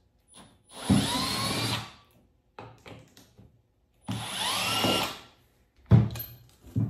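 Cordless drill/driver backing out the two screws of a fog light housing: two bursts of about a second each, the motor whine rising in pitch as each one spins up. A few short, sharp knocks follow near the end.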